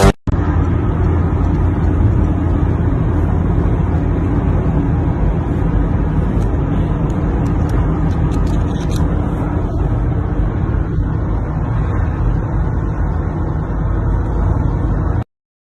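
Steady low rumbling noise without speech or music, cutting off suddenly near the end.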